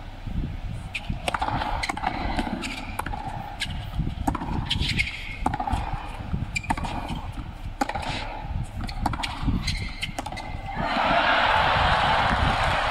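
Tennis rally on a hard court: a serve, then a string of sharp racket-on-ball strikes and bounces about every second. About eleven seconds in, the crowd breaks into loud cheering and applause as the point is won.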